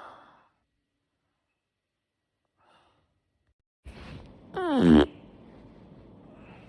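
A man's loud belch about four and a half seconds in, lasting about half a second, its pitch falling steeply as it goes: gas brought up from a stuffed, bloated stomach after a heavy meal. A short breathy exhale at the very start.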